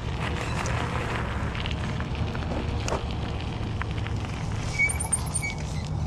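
E-bike tyres rolling over a gravel lane, with small stones crackling and popping under them and a steady low rumble of wind on the microphone. A short high squeak sounds twice about five seconds in.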